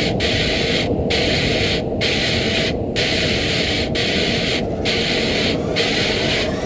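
Noisy electronic music with a dense, hissy, static-like texture. The hiss cuts out briefly in a regular pulse about once a second.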